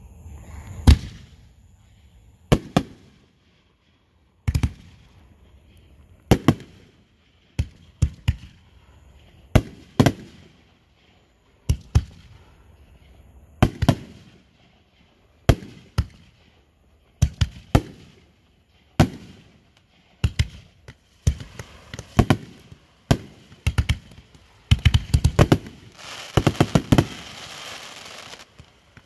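Fireworks going off: sharp bangs every second or two, building to a rapid crackling volley near the end.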